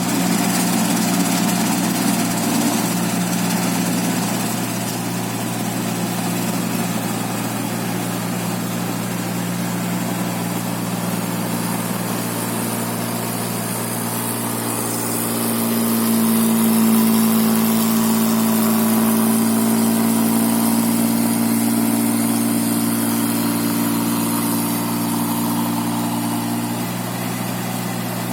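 Engine-driven rice machine running with a steady mechanical drone. About halfway through, a louder, higher hum joins in, then drops away shortly before the end.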